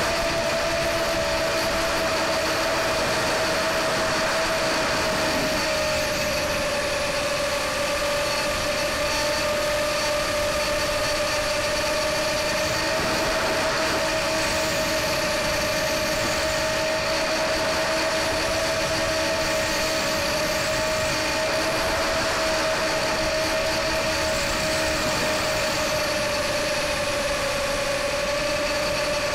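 Mini FPV quadcopter's electric motors and propellers whining steadily, heard close up from the onboard camera, the pitch wavering slightly as the throttle changes.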